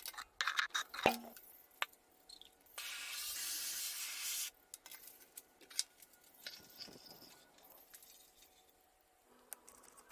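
Workshop sounds from hand work on an antique axe: a run of sharp clicks and knocks, and about a second and a half of steady hiss near the middle, like a spray.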